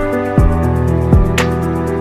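Background music with a steady beat: sustained chords over a kick drum, about three beats every two seconds, and a cymbal-like tick.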